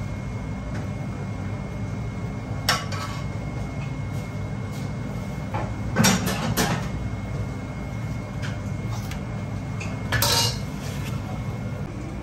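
Metal cutlery clinking against stainless steel dishes: a few separate clinks, one about three seconds in, two close together around six seconds, and a slightly longer one near ten seconds, over a steady low hum.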